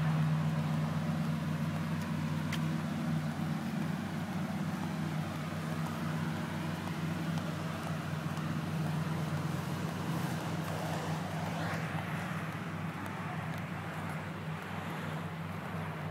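Lamborghini supercar engines idling together in a stopped line, a steady low drone, with a swell of broader noise about eleven seconds in.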